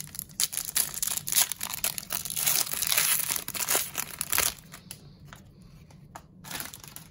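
Foil wrapper of a hockey trading card pack being torn open and crinkled, a dense crackling that stops about four and a half seconds in, leaving only a few soft clicks.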